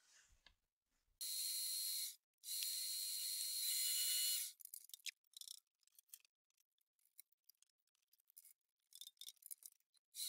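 Milling machine spindle running and drilling small holes in a metal plate: two bursts of high-pitched cutting noise with a steady whine in the first half, scattered light clicks, and another burst starting near the end.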